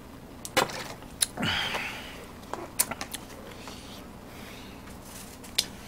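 Plastic water bottle crinkling and clicking as it is drunk from and set down, with a short breathy rush about a second and a half in.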